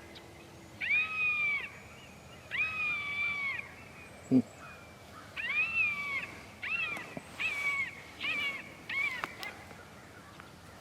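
Electronic predator call playing high, meow-like animal distress cries: three long drawn-out cries, then four shorter, quicker ones. A single sharp knock about four seconds in.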